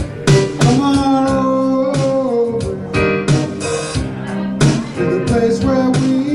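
Live blues band playing, with electric guitar, keyboard and trombone over a steady beat; a held note slides down about two seconds in.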